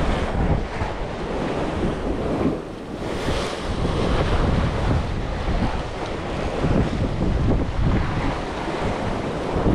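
Wind buffeting the microphone with a heavy rumble, over the steady wash of sea waves, swelling now and then.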